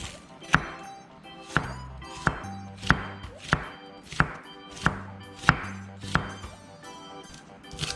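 Knife chopping on a cutting board, sharp strokes about one and a half times a second, over background music.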